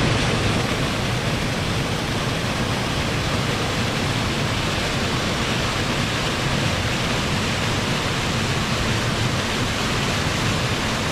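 Small waterfall rushing steadily over a rock ledge into a foaming pool below.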